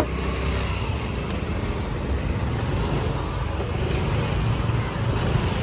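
Steady low rumble of motor traffic on the road, with no clear strokes or rhythm.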